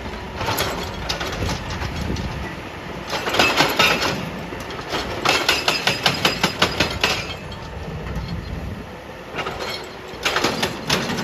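Excavator-mounted hydraulic breaker hammering rock in repeated bursts of rapid strikes, about six or seven a second, the longest burst lasting about two seconds in the middle. The excavator's diesel engine runs between the bursts.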